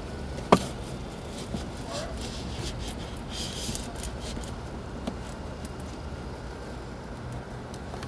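A single sharp plastic knock about half a second in as the Dometic CCF-T refrigerator bin is lowered into the truck's center console, then a few light clicks and handling rustles as it is pressed into place, over a steady low hum.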